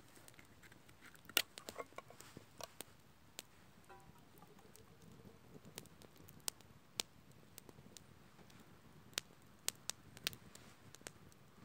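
Small wood campfire crackling: irregular sharp pops and snaps, a quick cluster about a second in, then scattered single pops, over a faint hiss.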